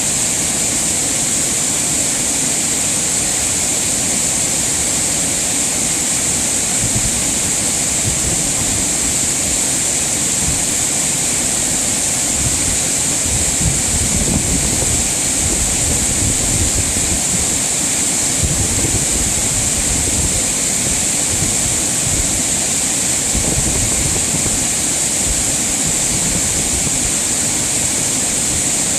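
Mountain valley stream rushing over rocks: a loud, steady hiss of running water, with a low rumble that swells and fades.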